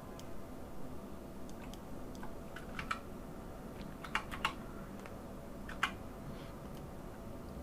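Scattered computer keyboard keystrokes at irregular intervals, a few sharper clicks about four and six seconds in, over a faint steady hum.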